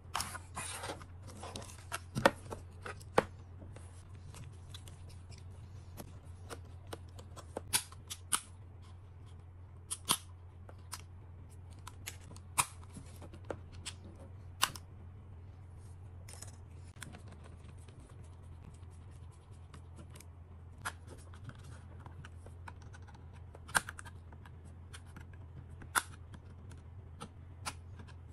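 Irregular sharp plastic clicks, snaps and taps with rustling in between, as a DJI Mini 3 Pro drone's plastic shell and parts are handled and pried apart by gloved hands. A steady low hum runs underneath.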